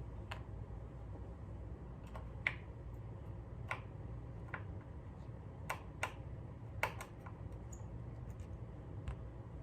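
Irregular light clicks and taps of a screwdriver and small screws as the pickguard is unscrewed from a Fender Precision Bass, over a low steady hum.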